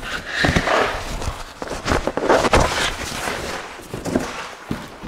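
Corrugated cardboard scraping and rustling as an inner speaker box is worked out of a larger outer shipping box, with a few dull knocks of box against box.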